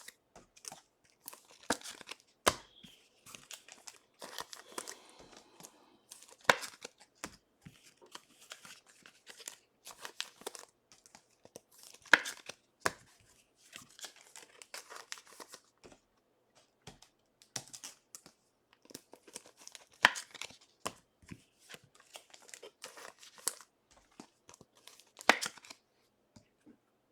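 Trading-card pack wrappers crinkling and tearing, with irregular sharp crackles and clicks as the cards are handled.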